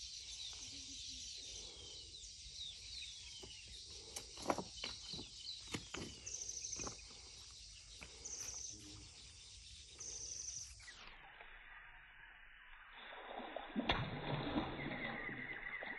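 Birds chirping in quick, falling calls, with a few sharp clicks around the middle. Near the end a hooked wallago catfish thrashes and splashes at the water's surface close to the bank.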